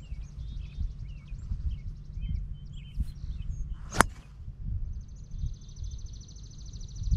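A driver strikes a Bridgestone e12 Contact golf ball off the tee with a single sharp crack about four seconds in. Wind rumbles on the microphone, birds chirp, and a steady high pulsing buzz like insects runs throughout.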